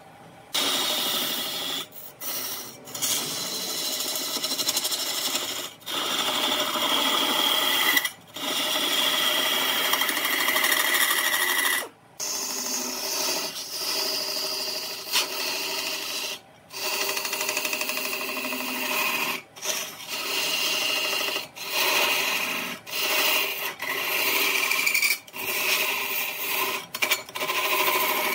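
A tool working wood, in passes lasting a few seconds each, broken by short, sudden pauses.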